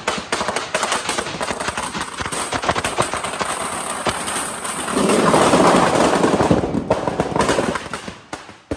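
Firecrackers bursting in a rapid, dense crackle. It grows louder about five seconds in for nearly two seconds, then thins out to scattered cracks near the end.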